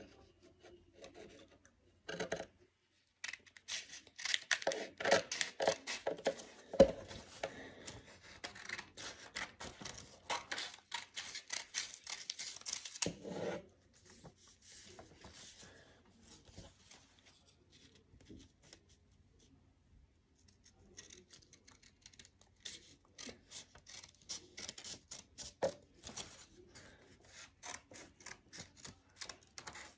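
Scissors snipping through a sheet of paper in quick runs of short cuts, trimming its edge. The cutting stops for several seconds around the middle, then starts again.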